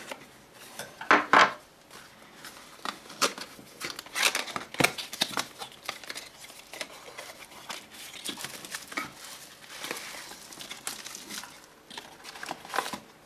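Cardboard product box being slit and opened by hand: a blade scraping through the box seal, with the loudest sharp strokes about a second in, then card flaps and plastic wrapping rustling and crinkling as the box is pulled open and the inner tray slid out.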